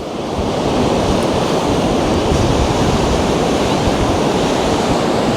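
Steady wind noise from about 19 mph wind blowing across a Rode Wireless GO II transmitter clipped to a sweatshirt and open to the wind, with surf underneath.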